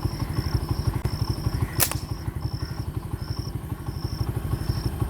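A small engine running with a rapid, even low pulsing, with insects chirping on and off in short spells. One sharp crack stands out about two seconds in.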